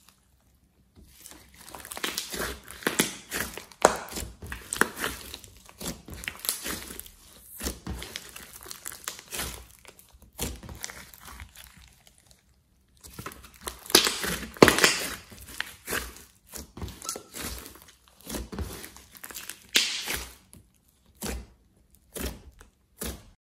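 Hands squeezing and pulling apart a large lump of thick slime, crackling and popping with many sharp clicks as trapped air pockets burst. The crackles come in irregular bursts with short pauses, and stop just before the end.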